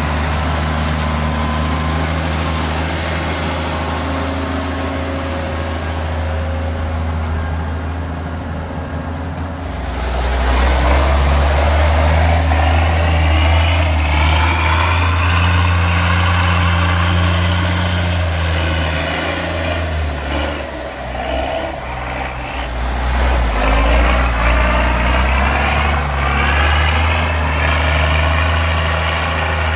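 County 1164 Turbo tractor's turbocharged diesel engine working hard while buck raking maize. It revs up about a third of the way in with a rising turbo whine, eases off briefly about two-thirds in, then pulls hard again.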